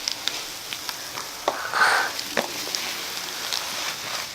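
Slime full of foam beads being pressed and squished: scattered small crackles and squelches, with a louder squelch about two seconds in.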